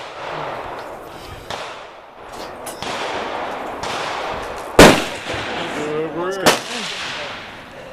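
Rifle shots: one loud, sharp shot about five seconds in, then a second about a second and a half later, with a few fainter cracks earlier on.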